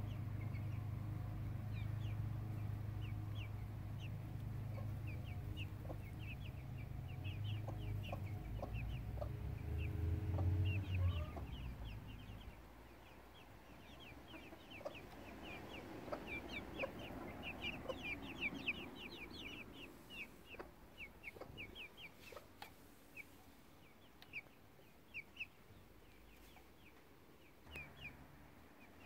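Month-old Silkie chicks peeping: many short, high cheeps, thickest midway through. Under them, a low steady hum is the loudest sound until about twelve seconds in, when it fades away.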